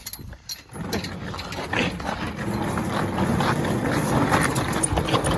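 Swivel chair's caster wheels rolling fast over rough ground, a steady rumble that builds after a quiet first second, with wind buffeting the microphone.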